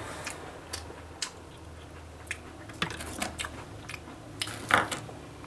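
Mouth sounds of someone licking the cream filling off a chocolate sandwich biscuit and eating it: scattered short wet clicks and smacks, with one louder smack near the end.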